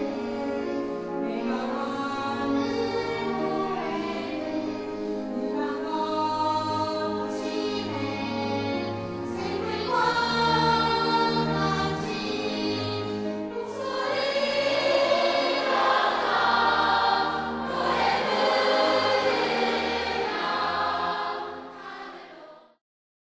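A mixed choir of disabled adults and children singing a song in held notes, with slurred, unpolished diction. It swells louder about ten seconds in and again at about fourteen seconds, then fades out near the end.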